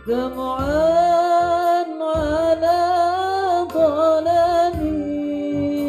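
A male student's voice singing solo, drawn-out notes that slide up at the start and waver in ornamented turns about the middle.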